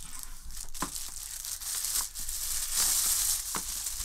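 Thin clear plastic wrapping crinkling and rustling as it is pulled off a bread maker, with a few sharp crackles, loudest about three seconds in.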